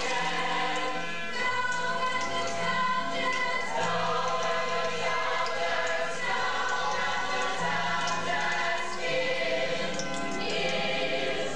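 Recorded music with singing voices, sustained notes over a steady accompaniment.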